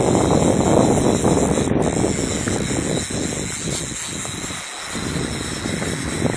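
Wind buffeting the microphone in uneven gusts, loudest at first and easing off about halfway through.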